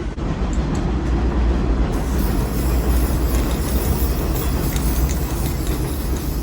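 Aerosol spray paint can hissing as the barrel barbecue grill is painted, starting about two seconds in, over a loud steady low rumble.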